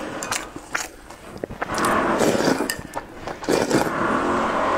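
Noodles and broth being slurped from a bowl, close to the microphone, in two long slurps from a little under two seconds in. Before that, a few sharp clicks of chopsticks against the ceramic bowl.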